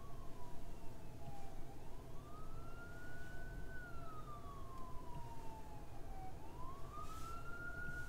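Emergency vehicle siren in a slow wail, its pitch rising over about a second and a half, then falling over two to three seconds, going round about twice, over a steady low hum.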